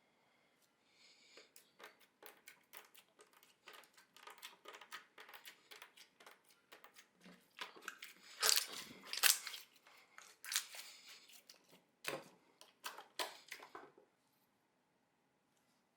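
Slime being squeezed and stretched by hand, giving a run of irregular wet crackles and pops that grow loudest about halfway through and stop a couple of seconds before the end.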